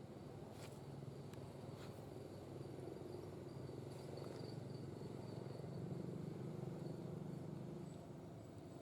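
Faint, steady high-pitched insect trill over a low rumble, with a few light clicks.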